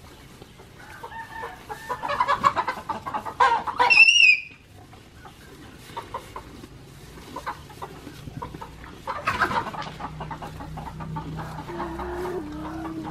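Chickens clucking and calling from the yard, in a loud burst about two to four seconds in that ends in a high wavering call, and again near ten seconds. Under it, small crunching clicks from a cow tearing and chewing fresh grass.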